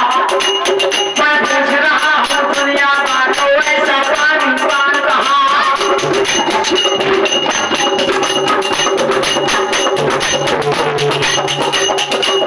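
Instrumental passage of Alha folk music: a melody line over steady rhythmic percussion with jingling.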